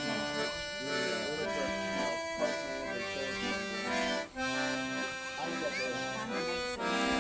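Accordion music: held chords that change every second or so, with people's voices talking faintly underneath.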